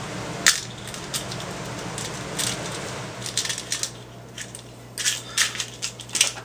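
Small metal screws and RC car parts being handled on a glass tabletop: irregular light clicks and clinks, one sharp tap about half a second in and a quicker run of taps in the second half.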